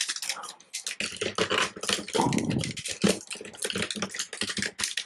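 Hard plastic parts of a 2001 Robots in Disguise Optimus Prime transforming toy clicking and rattling as they are handled, its chest pegs being pushed into their holes. A dense, irregular run of clicks with a few duller knocks.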